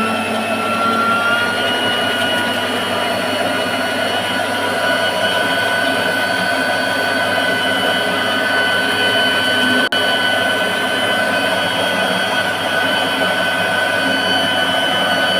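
Electric meat grinder's motor running steadily with a high whine, which rises a little in pitch early on and has a brief break about ten seconds in.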